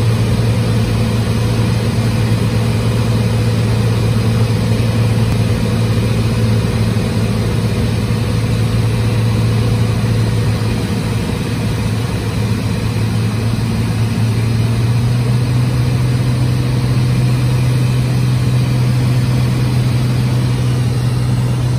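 Cessna 206H Stationair's six-cylinder Lycoming IO-540 engine and propeller droning steadily in cruise-descent, heard from inside the cabin. The drone's pitch rises slightly about two-thirds of the way through.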